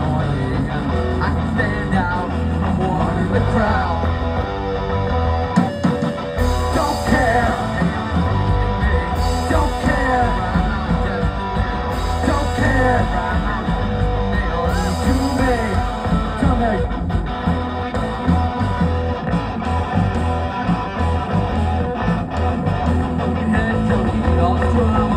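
Live rock band playing a song: electric guitar, electric bass and drum kit, with sung vocals coming and going over the music.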